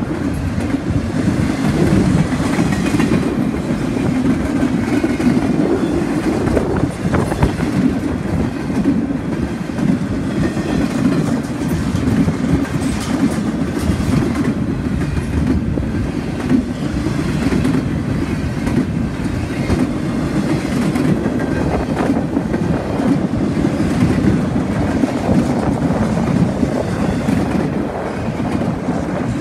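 Empty double-stack intermodal well cars of a freight train rolling past: a steady rumble of steel wheels on rail with scattered clacks.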